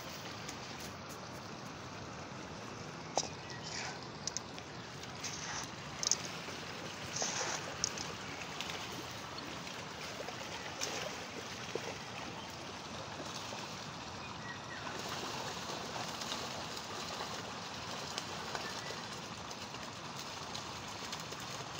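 Steady rush of a flowing stream, with a few short knocks and clicks in the first half.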